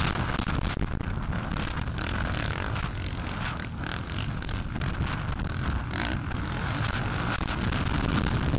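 Suzuki RM250 two-stroke single-cylinder motocross bike running hard on a dirt track, mixed with other motocross bikes close by. Wind buffets the microphone.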